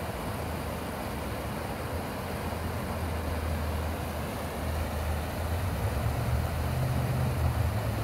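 Steady rush of creek water under a low engine hum, which grows louder in the last couple of seconds.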